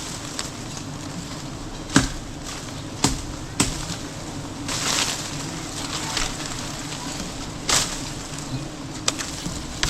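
Four sharp cracks spread across several seconds, with short bursts of rustling hiss between them over a steady low hum.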